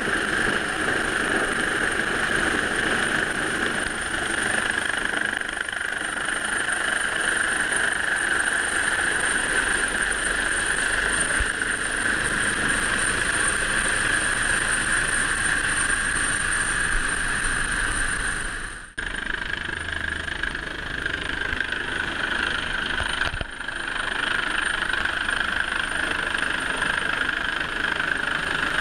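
Steady mix of lifeboat engine noise, wind and the rotor and turbine noise of a Coastguard helicopter hovering low overhead, with a steady high whine running through it. The sound dips out sharply twice, about two-thirds of the way through.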